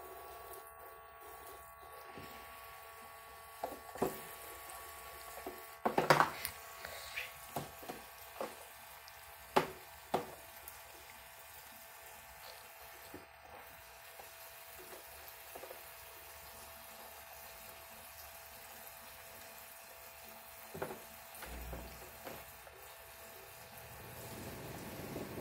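Battery-powered toy sink's faucet running a thin stream of water into sudsy water, over a faint steady pump hum. A Java macaque splashes and knocks objects about in the basin, with sharp splashes and clacks around 4, 6 and 10 seconds in, the loudest about 6 seconds in.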